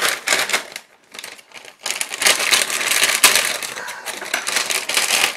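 Plastic inner bag of Kellogg's Tresor cereal crinkling as it is handled, with the cereal pillows shifting inside. The crinkling comes in short patches at first, then runs steadily and louder from about two seconds in.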